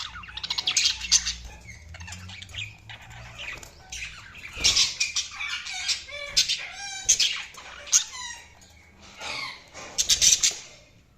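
Budgies chirping and chattering in a continuous run of short squawks and warbling calls, with louder clusters of calls about a second in, around five, seven and ten seconds in.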